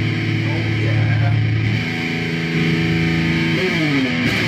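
Rock music led by a distorted electric guitar playing held chords. The chord changes about two seconds in, and the guitar slides down in pitch near the end.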